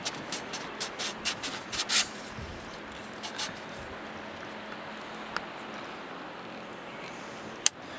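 Quick light clicks and rubbing as the handle section of a three-piece stand-up paddle is slid along the shaft and adjusted, thinning out after a couple of seconds, then one sharp click near the end.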